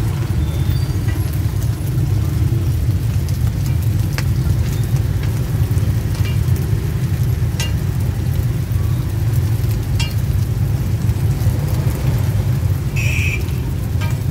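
Rounds of sticky rice frying in oil on a flat pan, with a faint sizzle and a few light clicks of metal tongs against the pan, over a steady low rumble. A short high beep near the end.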